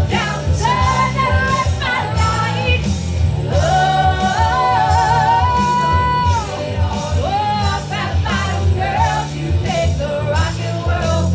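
Loud live pop-rock song from a stage musical: a solo singer holds long notes, one of them wavering, over band backing with a steady pulsing bass.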